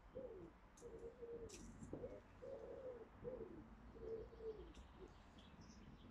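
A dove cooing faintly, a run of soft low notes that each dip in pitch at the end, about two a second, stopping near the end. Small birds chirp faintly in between.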